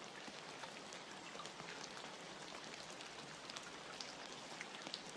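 Faint steady rain ambience: a soft even patter of rain with scattered individual drops ticking through it.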